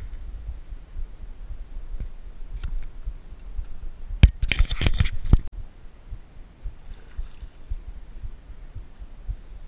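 Steady low rumble of wind and handling on a body-worn camera. About four seconds in, a sharp knock and then about a second of splashing and clatter as a hooked fish thrashes at the surface near the bank.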